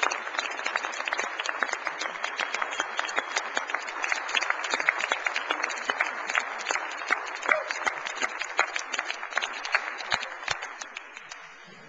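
A large audience applauding in a standing ovation, a dense steady clapping that dies away near the end.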